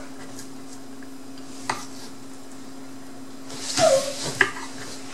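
Steady low hum of kitchen room tone, with a single click about a second and a half in. Near the end comes a brief cluster of clatter and rustle as chopped cucumber is dropped into a small bowl of sweet chili dipping sauce.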